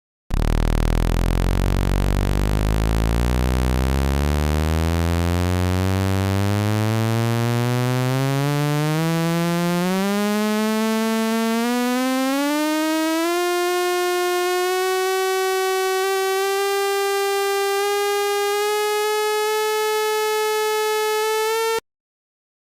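Electronic sound effect: a buzzy, siren-like tone that starts very low and rises steadily in pitch for about thirteen seconds, then holds at a steady pitch and cuts off abruptly.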